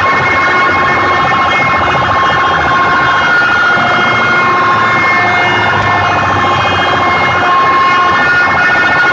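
Loud siren-like electronic tones blaring without a break from a large sound-system speaker rig, several held pitches with slow glides over a pulsing bass.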